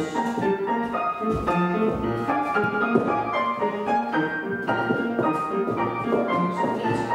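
Upright piano playing a brisk, rhythmic accompaniment of quick successive notes for a ballet class's pointe exercise.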